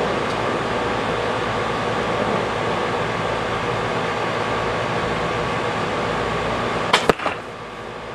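A steady background hum runs while the Oneida Black Eagle compound bow is drawn. About seven seconds in, the string is released with a sharp snap, and a fraction of a second later the arrow strikes the bag target with a second sharp hit.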